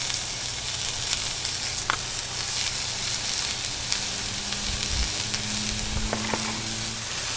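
Frozen beef burger patties sizzling steadily on a hot griddle.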